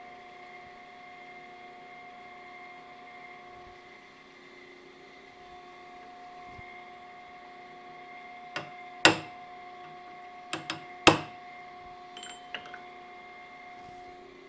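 Hammer striking a blunt-nosed chisel held against a camshaft, peening the shaft's low side to expand the metal and bring it straight: five sharp metal strikes about 8.5 to 11 seconds in, two of them much louder, then a couple of faint ticks. A steady machine hum runs underneath.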